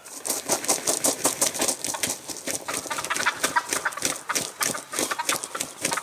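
Wild turkey wings beating in a rapid, continuous flurry of flaps and thumps as a downed gobbler flops on the ground among other gobblers.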